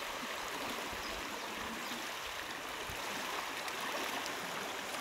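Steady rushing of a flooded, overflowing creek: fast muddy floodwater pouring past in a continuous noise.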